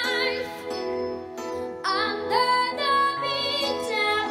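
A boy singing a ballad with a smooth vibrato, holding and bending long notes over sustained instrumental accompaniment.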